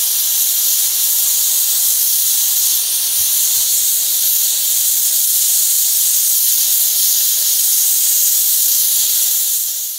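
Narrow-gauge steam locomotive venting steam with a loud, steady hiss, the steam escaping low at the front of the engine.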